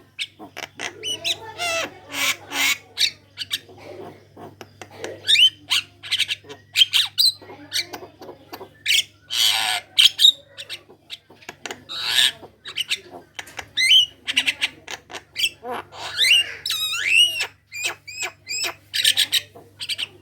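Javan myna singing a long, fast, varied string of harsh rasps, clicks and whistled notes that glide up and down in pitch, with hardly a pause.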